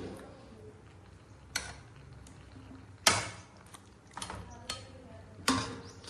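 A few scattered sharp clicks and knocks, the loudest about three seconds in, over a quiet low background.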